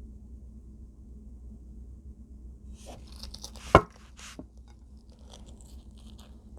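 Brief scraping and crunching of food and tableware being handled, with one sharp knock just past the middle, the loudest sound, then a few faint crackles.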